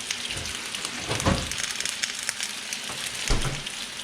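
Bacon-wrapped hot dogs, onions and bell peppers frying in oil in a pan, giving a steady sizzle dotted with small crackles and pops. Two dull thumps come through, about a second in and again near the end.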